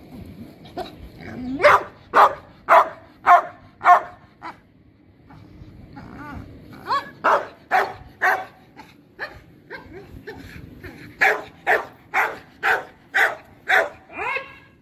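Anatolian shepherd dog barking in three runs of sharp barks, about two a second, with short pauses between the runs; the owner puts the barking down to jealousy.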